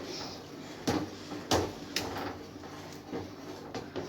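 A spoon stirring harira soup in a pot, knocking against the pot several times. The soup is being stirred so the fermented flour thickener and its small lumps dissolve.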